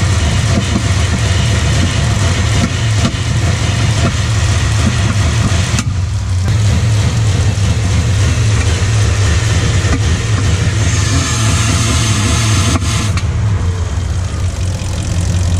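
A 1996 Dodge Ram 1500's 5.2-litre Magnum V8 running steadily under the open hood at operating temperature. It has a fault logged as code P1391, a camshaft or crankshaft position sensor signal fault, that makes it run rough when warm, which the owner takes for misfires from missing fuel or spark.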